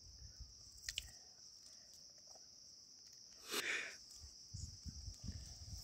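Steady high-pitched insect chorus outdoors, with a few faint clicks, a brief loud rustle a little past halfway, and some low thumps near the end.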